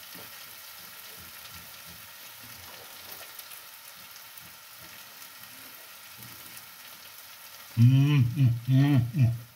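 Termites and greens sizzling steadily in frying pans on a gas stove. About eight seconds in, a man cuts in with a few loud, drawn-out closed-mouth 'mmm' hums as he tastes the food.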